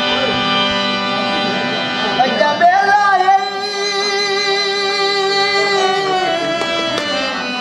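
Harmonium playing, its reeds sounding held chord tones, with a man singing over it: his voice comes in about two seconds in and holds one long, wavering note before trailing off near the end.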